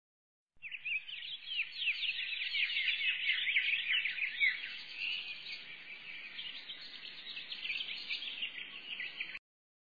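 A flock of small birds chirping rapidly and continuously, many quick overlapping tweets at once. It starts about half a second in and cuts off abruptly near the end.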